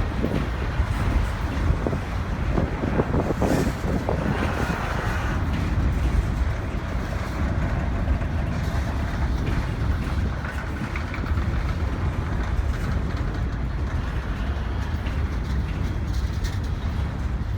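Long freight train rolling past: a steady rumble of steel wheels on rail, with a few knocks and clanks in the first few seconds.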